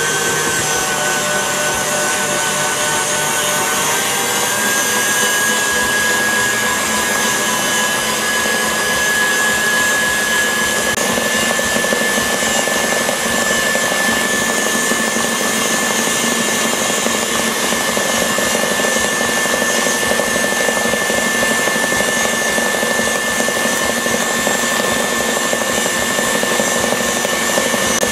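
KitchenAid stand mixer running steadily, its whisk beating cooked pastry cream smooth in a stainless steel bowl. The motor's steady whine steps up slightly in pitch about four seconds in and again around eleven seconds.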